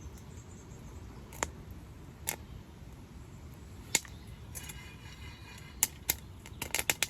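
Popcorn kernels popping in a pan over a wood fire: sharp single pops about a second apart at first, then coming quickly in a cluster near the end as the popping gets going.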